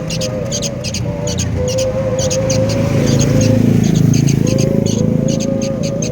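Sooty-headed bulbul chicks giving short, rapid begging calls over and over, several a second. A low rumble swells and fades in the middle.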